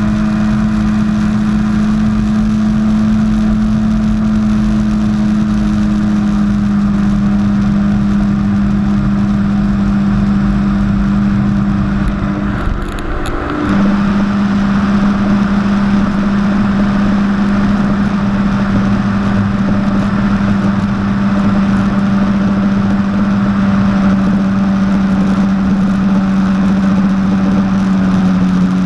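Jet ski engine running steadily at speed, a constant drone over a rushing noise; about halfway through it briefly eases off, the pitch dipping, then picks back up.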